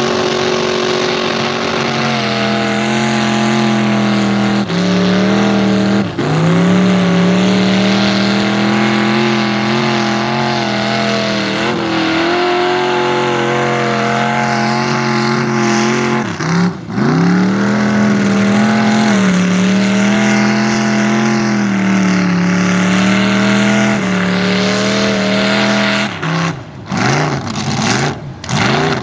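Mud truck's engine revving hard and held at high revs as the truck drives through a mud bog. The pitch drops briefly and climbs back again several times, with a deeper dip about halfway through and a few sharp cut-outs and recoveries near the end.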